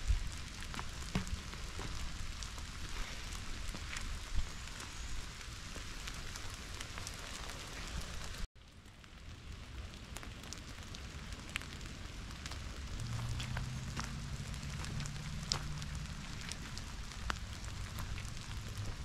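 Steady rain falling, with many scattered sharp ticks of drops landing close by. The sound drops out for an instant about eight seconds in and then resumes, and a low steady hum joins in during the second half.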